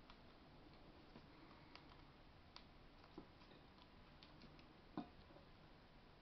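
Faint, irregular clicks of a cockatiel husking and cracking seeds (millet, oats, sunflower seed) at a clear plastic feed tray, with one louder click about five seconds in.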